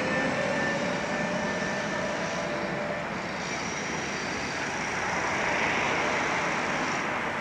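Articulated electric tram passing close and pulling away, its traction drive whining in a slowly rising pitch over the first few seconds, over the rumble of street traffic. A car drives past close about five to six seconds in.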